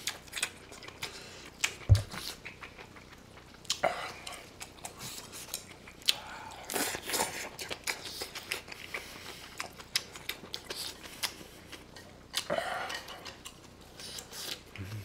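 Close-miked chewing and wet mouth sounds of eating bulgogi with stir-fried kimchi, with short clicks of chopsticks on the pan and a single thump about two seconds in.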